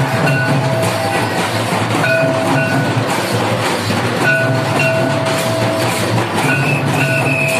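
Live music for a Santali village dance: steady drumming and clattering percussion under a wind instrument playing long high held notes that break off and resume every second or so.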